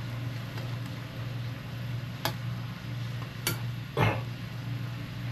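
Instant noodles boiling in a pot on a stove over a steady low hum, with three sharp clinks of kitchenware, the loudest about four seconds in.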